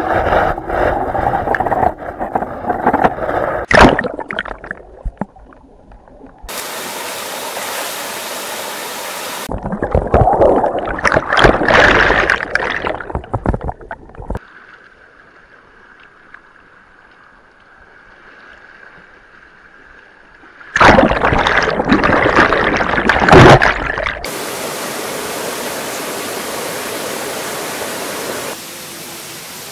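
Running water, gurgling and splashing, heard in a series of short cuts: loud, choppy splashing stretches alternate with steady rushing water noise and one quieter pause.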